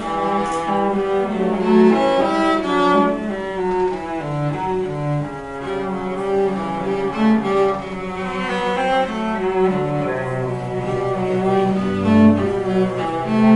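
Two cellos playing a classical duet, one carrying the melody over the other's bowed lower part. From about ten seconds in, the lower cello holds long low notes.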